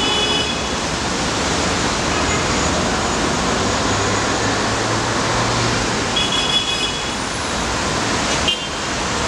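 Busy city-square traffic: a steady wash of engine and tyre noise from buses and cars. Short, high-pitched tones cut through it twice, near the start and about six seconds in.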